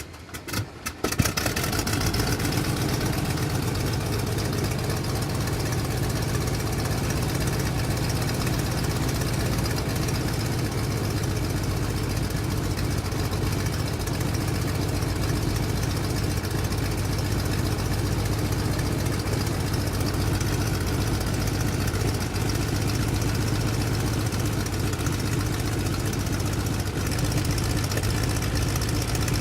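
Biplane's piston engine coughing a few times and catching about a second in, then idling steadily with a low, even throb.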